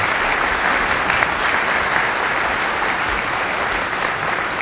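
A large audience applauding steadily, welcoming a speaker.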